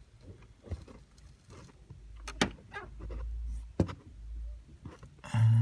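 Daewoo Lanos steering column's white plastic bushing creaking as the wheel is turned: several short sharp creaks, then a loud, short low groan near the end. This is the source of the steering-wheel squeak.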